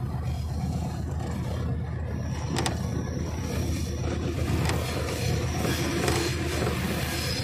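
GE U20 diesel-electric locomotive running at speed, heard from beside its engine hood: a steady low engine rumble mixed with wheel and rushing noise, with a sharp click about two and a half seconds in.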